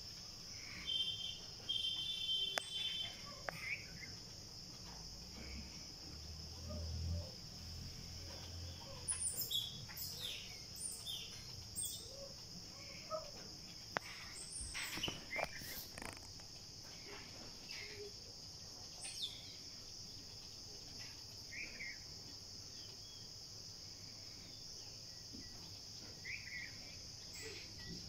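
Steady high-pitched chorus of insects, with scattered short bird chirps and calls over it.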